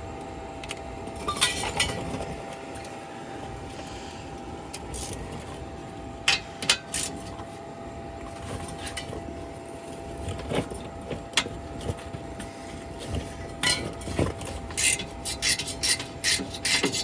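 Metal hand tools clinking and clicking against a rusted fastener while it is worked loose by hand, with scattered sharp clicks and a quicker run of clicks near the end.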